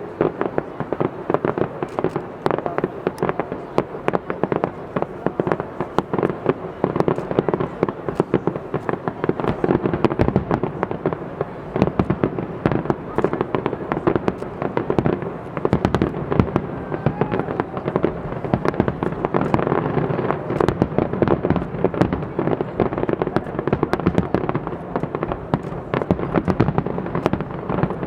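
Fireworks display: a continuous barrage of rapid bangs, many a second, with no pause.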